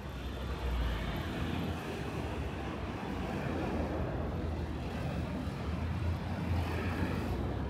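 City street traffic: a steady rumble and wash of passing vehicles.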